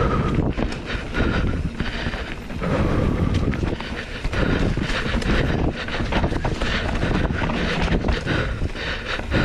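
Downhill mountain bike rolling fast over a rough dirt trail: knobby tyres on loose dirt and leaves, with the bike rattling and clattering over bumps throughout, and wind buffeting the microphone.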